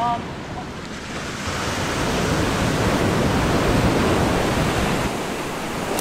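Surf breaking and washing up a sandy beach, with wind rumbling on the microphone.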